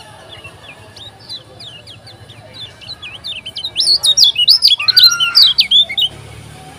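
Kecial kuning (a white-eye) giving soft, high chirps, then about halfway through breaking into a loud, rapid burst of song: quick notes swinging up and down. The song stops abruptly shortly before the end.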